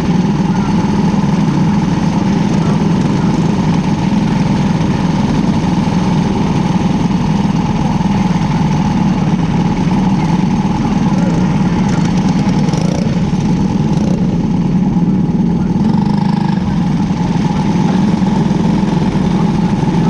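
Cadet wing kart engine idling steadily, close to the microphone, with no revving.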